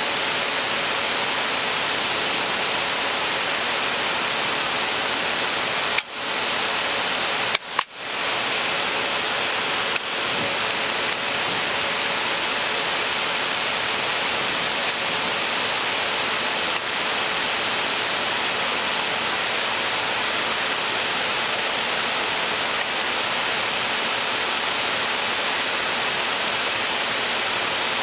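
Steady rushing cockpit noise of an Embraer Legacy 600 business jet in flight, mostly air streaming over the nose and windscreen, with a faint steady hum underneath. The sound briefly drops out about six seconds in and twice more just before eight seconds.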